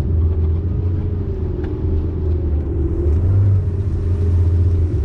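Bass boat's outboard motor running at speed: a steady low drone with a wavering hum above it.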